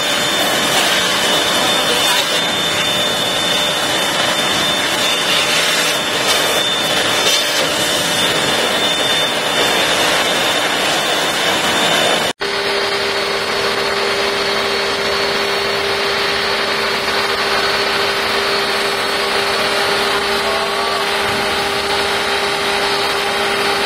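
ABW VGS 70 electric pressure washer running, its water jet hissing steadily against a motorcycle wheel. After an abrupt cut about halfway through, the spray continues as foam from a snow-foam lance, with a steady hum under the hiss.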